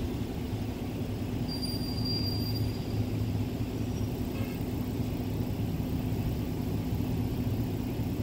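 Steady low rumble of road traffic and idling engines, with a faint hum throughout.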